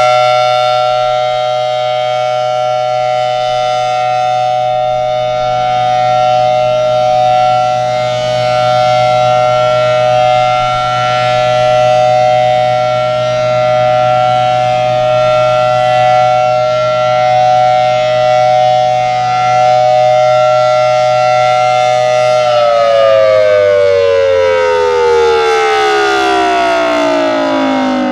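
FS&S Thunderbolt 1000T outdoor warning siren sounding its steady alert signal: a loud two-note chord held at one pitch, swelling and fading every few seconds as the head rotates. About 22 seconds in the signal ends and the pitch slides steadily down as the siren winds down.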